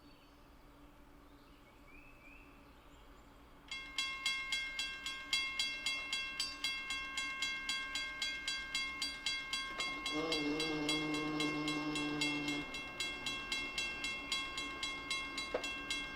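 Railroad grade-crossing bell starts ringing about four seconds in, a steady fast ding of two or three strokes a second. About ten seconds in, the approaching CSX freight locomotive sounds one long horn blast of nearly three seconds over the bell.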